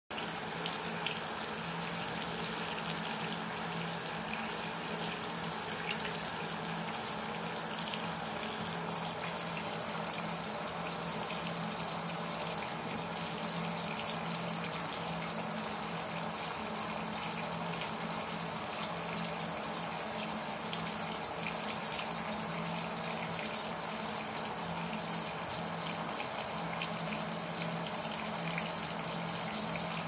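Tap water running steadily and splashing onto a rubber suction-cup bath mat, with a steady low hum under the hiss of the water.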